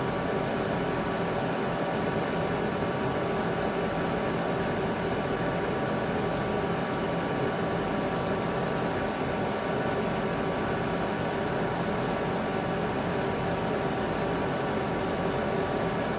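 A steady mechanical hum with several held tones over an even hiss, unchanging throughout.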